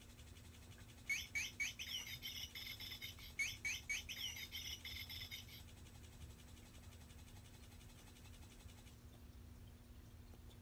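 Electronic plush bird cat toy chirping: two runs of quick, high twittering chirps, the first about a second in and the second around three and a half seconds in. A faint rapid ticking carries on after the chirps and stops about nine seconds in.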